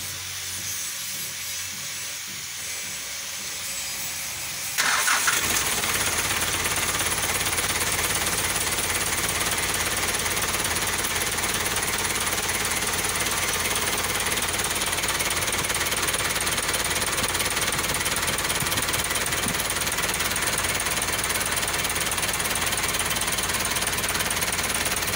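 Mitsubishi 4D35 four-cylinder diesel engine starting about five seconds in, then idling steadily with an even, rapid clatter.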